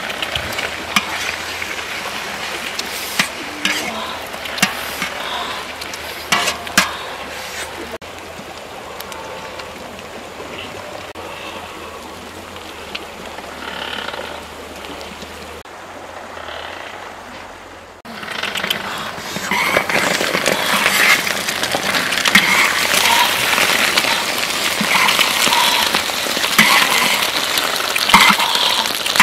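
Duck eggs frying in oil in a large wok: sizzling and crackling, with sharp clinks and scrapes of a metal spatula against the pan in the first several seconds. The sizzling drops quieter for about ten seconds in the middle, then comes back louder and denser.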